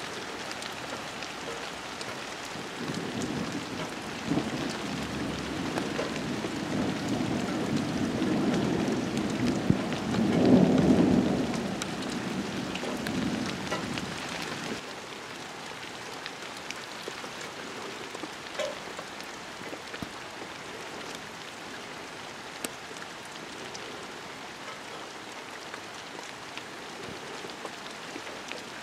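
Steady rain falling on garden foliage, with a low rumble of thunder that swells from about three seconds in, peaks near the middle and dies away.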